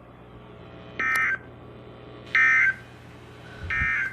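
Three short bursts of NOAA Weather Radio SAME digital data tones, about 1.3 s apart: the end-of-message code that closes the alert.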